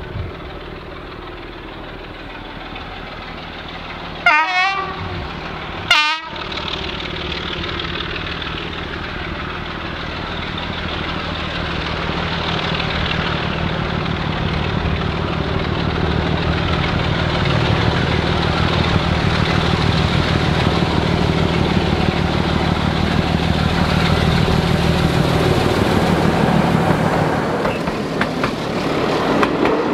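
Two short horn blasts from a heritage diesel locomotive, about a second and a half apart, then the locomotive's engine running steadily under power, growing louder as the train approaches and passes, and easing off near the end.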